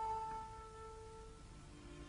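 Soft background music from the cartoon's score: held notes that fade away, then a new, lower chord coming in near the end.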